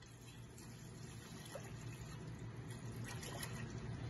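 Milk pouring in a steady stream from a jug into a non-stick saucepan: a faint, continuous splashing that grows slowly louder as the pan fills.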